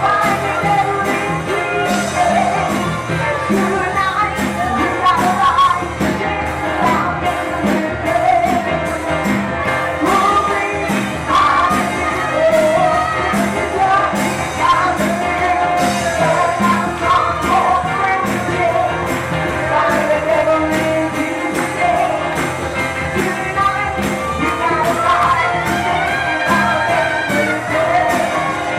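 Congregational worship music: singing over a band with a steady beat and a tambourine, in a large hall.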